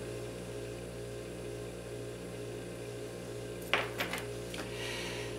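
Steady low electrical hum. About three and a half seconds in, a brief light clink as the metal chain bracelet is set down on the table.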